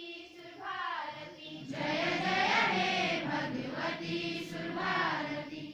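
A large group of schoolchildren singing a prayer together in unison, in a chant-like melody.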